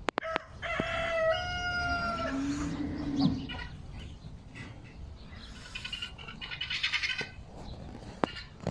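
A rooster crows once, starting about a second in: one long call. Softer, rapid clucking-type calls follow a few seconds later.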